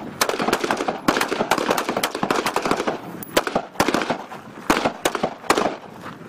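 M16-pattern service rifles firing from several shooters at once: a rapid, uneven string of single shots that stops about five and a half seconds in.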